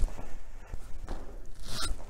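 Clothing swishing and soft steps on a hard floor as a person does stepping jumping jacks, arms swinging up and down; a short swish comes about once a second.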